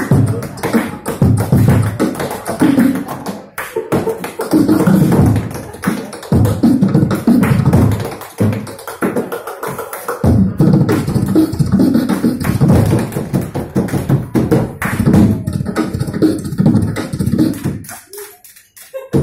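Tap dancing: fast rhythmic runs of tap-shoe strikes, breaking off briefly about eight seconds in and then starting again.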